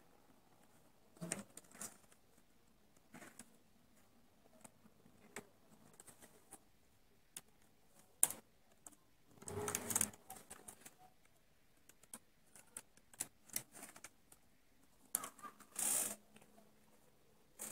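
Small irregular clicks and ticks of metal needles and a hand transfer tool on a Passap knitting machine's needle bed, as stitches are moved by hand to shape a neckline. Two louder rustling scrapes come about ten seconds in and near the end.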